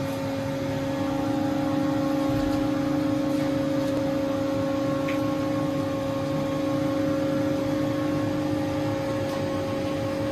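TRAUB TNS 60 CNC lathe running under power: a steady mechanical hum with two strong steady tones, one low and one about an octave higher.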